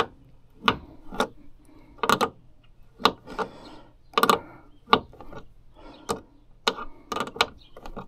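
Wrench working on the fasteners of a car door's hardware: a dozen or so sharp metallic clicks and taps at uneven intervals, some in quick pairs.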